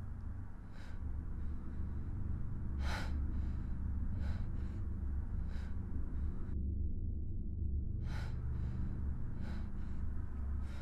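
A woman's sharp, shaky gasping breaths, about six of them a second or two apart, over a low steady hum.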